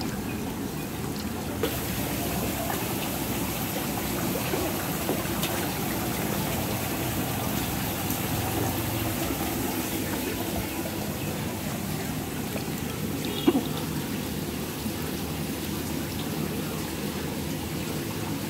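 Steady splashing and trickling of shallow water stirred by a dense mass of wriggling stinging catfish (deshi shing) in a tub. A single sharp knock stands out about two-thirds of the way through.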